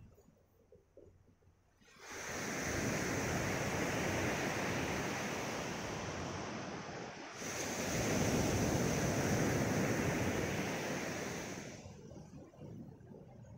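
Surf breaking and washing up a pebbly shore: two long surges of rushing wave noise, starting about two seconds in and easing off near the end.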